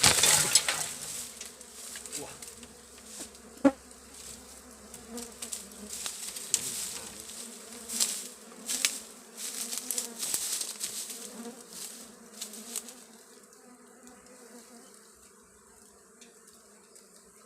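Dwarf honey bees buzzing in a steady hum around a disturbed colony, mixed with crackling and rustling noises and one sharp click about four seconds in. The hum grows fainter over the last few seconds.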